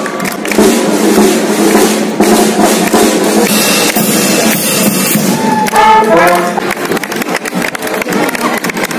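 Brass band with drums playing while it marches past, the horns and a steady drum beat up close.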